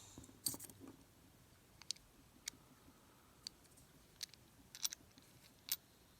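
Scattered sharp clicks and taps of small metal parts as an American 1100 padlock is handled with gutting tools, about ten irregular clicks spread over a few seconds.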